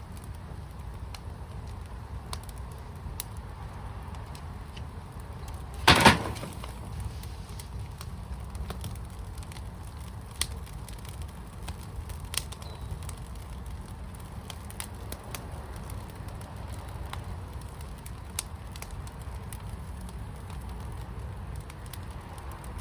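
Firepit fire crackling, with scattered sharp pops over a low steady rumble. A louder burst of snaps comes about six seconds in.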